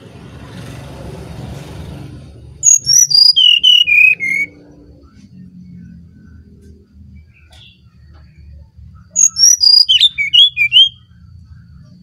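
Brown-chested jungle flycatcher singing its flute-like song: two phrases of clear whistled notes that step downward in pitch, the first about three seconds in and the second near the end.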